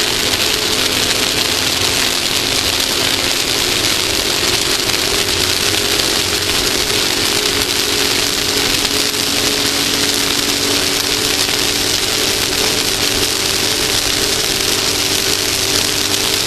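Off-road race vehicle's engine running at a steady, unchanging pitch under a loud, even hiss of wind and tyre noise, heard from a camera mounted on the front of the vehicle.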